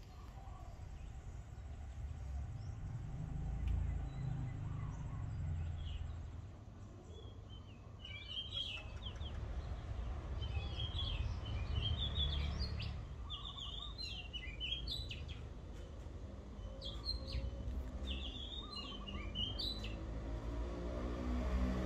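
Small birds chirping: short high chirps repeat in clusters, starting about eight seconds in, over a low steady rumble of background noise.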